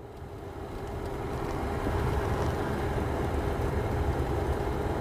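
Interior noise of a car being driven, picked up by its dashcam: a steady low engine and road rumble with a faint steady hum, fading in over the first two seconds.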